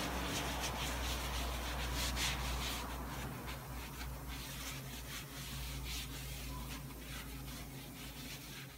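Foam applicator pad rubbing in repeated strokes across a plastic engine cover, spreading a vinyl and plastic dressing, over a steady low hum. The strokes grow fainter toward the end.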